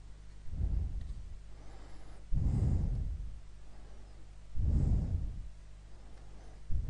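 A person breathing heavily into a close microphone: three breaths about two seconds apart, over a steady low electrical hum.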